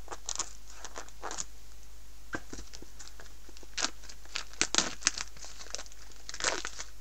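Plastic shrink-wrap seal on an iPhone 4 retail box being torn and peeled off by hand, in irregular crinkles and short tearing crackles, the loudest a few tears past the middle and one near the end.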